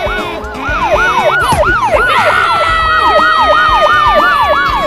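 Police-style siren in fast yelp mode, its pitch sweeping up and down about three times a second. About two seconds in, a long steady tone that slowly sinks in pitch joins it, over low rumbling.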